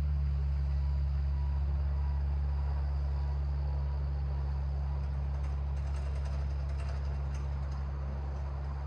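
Steady low mechanical hum of a running machine, such as a vehicle engine, with no break or change in pitch, easing slightly in loudness toward the end.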